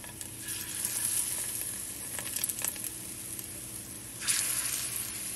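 Battered plantain slices frying in hot oil in a frying pan, a steady sizzle that swells sharply a little after four seconds in as another battered piece is lowered into the oil.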